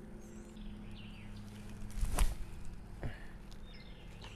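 A disc golf forehand roller shot: a thump about two seconds in as the disc is thrown, then a sharp knock about a second later. Birds chirp faintly throughout.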